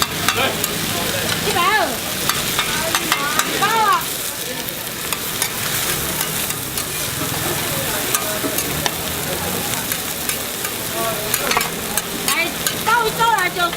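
Food sizzling as it fries in hot oil or on a griddle, with frequent sharp clicks and scrapes of a metal utensil stirring it.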